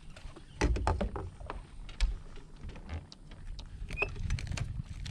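Knocks and thumps on a fiberglass bass boat as a hooked bass is reeled to the side and lifted aboard. There is a cluster of sharp hits about half a second in, a loud single knock about two seconds in, and another near the end.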